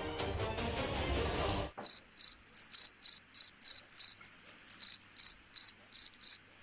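Background music from a TV-serial clip cuts off abruptly about a second and a half in. It is replaced by a stock cricket-chirping sound effect: a steady run of short, high chirps, about three a second.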